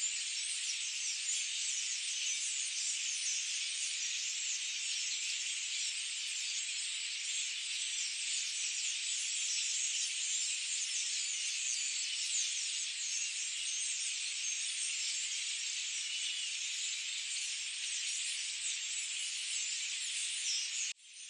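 Dense, continuous high-pitched chorus of many overlapping chirping calls in a forest, with no low sounds under it. It cuts out for a split second near the end, then resumes.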